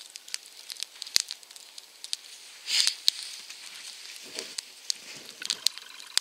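Small campfire of spruce twigs and branches burning, crackling with irregular sharp pops. A brief rustle comes a little before the middle.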